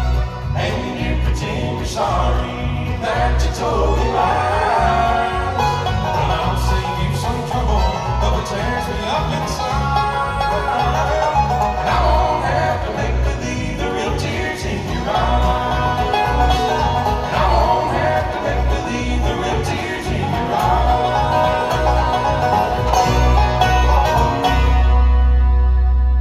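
A live bluegrass band playing, with banjo, guitar and singing, closing on a held chord near the end.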